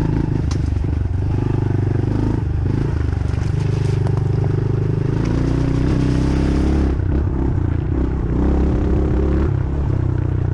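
Dirt bike engine running hard on a trail, its pitch rising and falling with the throttle, with a few clicks and clattering over it.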